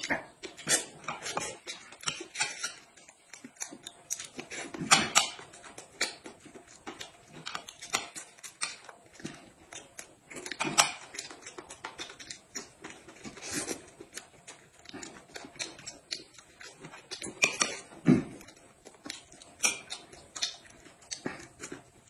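Close-miked eating sounds: people chewing and lip-smacking on steamed buns, with tearing of the soft bread. These come as irregular soft clicks and smacks, with a few fuller wet ones.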